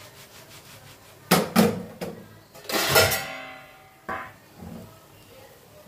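Non-stick frying pan knocking against the gas stove's metal pan support as it is moved and set back down. There are two quick knocks about a second and a half in, a louder clank with a brief metallic ring about three seconds in, and a lighter knock about four seconds in.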